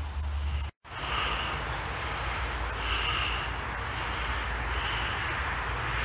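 Summer woodland insect chorus, a steady high buzz of crickets, over a low rumble. The chorus cuts off abruptly under a second in. After that, the low rumble continues with three short high chirps about two seconds apart.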